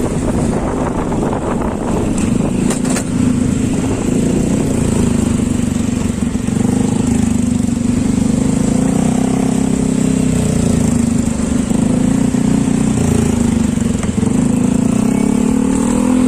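Honda Click scooter's single-cylinder engine running at a steady cruise while being ridden, a continuous drone with air rushing past the microphone.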